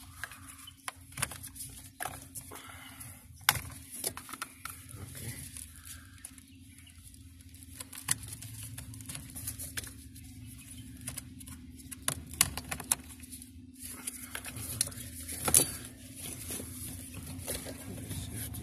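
Plastic wiring-harness connectors being unlatched and pulled from the under-dash fuse box: scattered sharp clicks and plastic rattles, irregular and a few seconds apart, over a faint steady hum.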